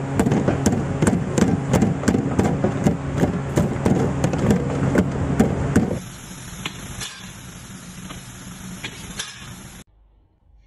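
Bamboo-splitting machine running with a steady low hum and rapid sharp clicking, about four clicks a second. About six seconds in it gives way abruptly to a quieter noise with a few light taps, which cuts off near the end.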